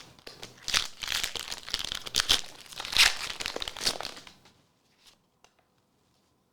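Foil booster pack wrapper being torn open and crinkled, a dense crackling that lasts about three and a half seconds and then stops, followed by a few faint clicks.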